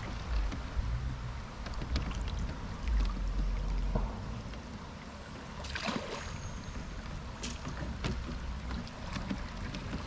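River water gurgling and lapping around a bamboo raft as it moves along, with scattered small knocks and splashes and a louder one about six seconds in. A low rumble comes and goes underneath.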